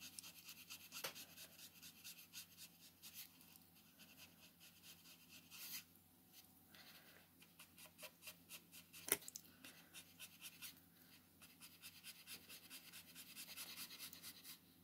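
Faint, quick flick strokes of a Copic alcohol marker's nib on colouring-book paper: a light scratching repeated many times, with one sharper tick about nine seconds in.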